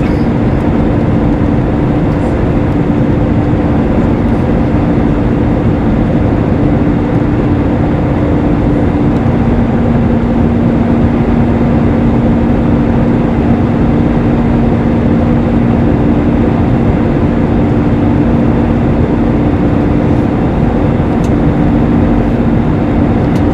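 Airbus A320 cabin noise in the climb, heard at a window seat over the wing: a steady roar of the jet engines and rushing air. Under it are two steady engine hums, one fading and a lower one growing stronger about nine seconds in.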